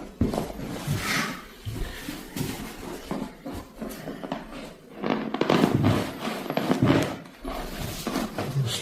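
Irregular rustling and soft knocks of body and clothing shifting on a treatment couch during a manual ankle stretch, louder for a couple of seconds past the middle.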